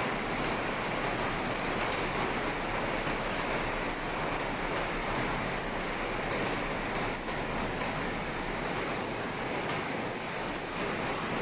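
Muddy flash-flood water rushing past in a steady, even torrent.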